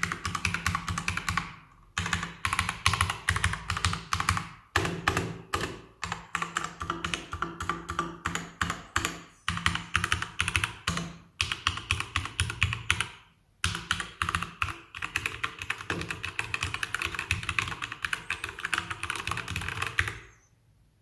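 Keychron K2 mechanical keyboard with Gateron Brown tactile switches being typed on fast and continuously, key clicks in quick runs with a few brief pauses. The typing stops near the end.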